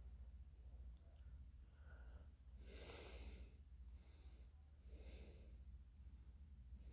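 Near silence over a low hum, with two soft breaths about three and five seconds in and a faint click about a second in.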